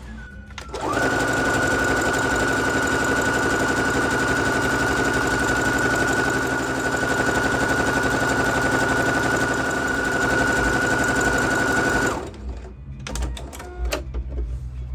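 Singer Heavy Duty 6805C sewing machine sewing a decorative festoon (scallop) stitch at a steady speed, with a steady high whine. It starts about a second in and stops near the end, followed by a few light clicks.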